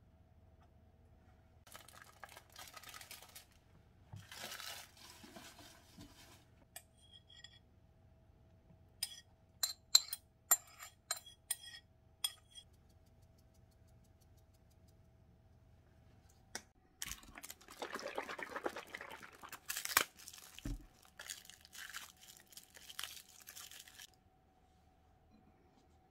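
Shredded cabbage being tossed and handled in a ceramic bowl: crisp rustling and crunching in two bursts, with a run of sharp clicks and taps against the dishes in between and one louder knock late on.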